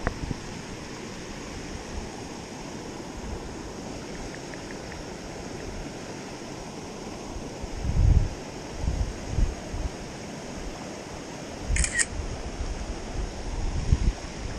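Steady rush of river rapids. Low bumps of the camera being handled come about 8 seconds in and again near the end, and two sharp clicks come about 12 seconds in.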